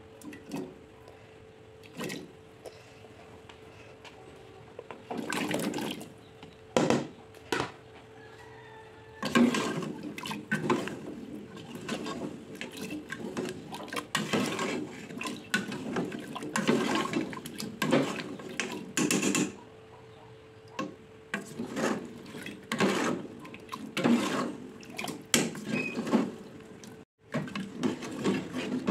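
Chunks of purple sweet potato dropped one by one into a metal pot of liquid, each landing with a splash. About nine seconds in, a metal ladle starts stirring, sloshing the liquid and scraping the pot in an irregular run of splashes.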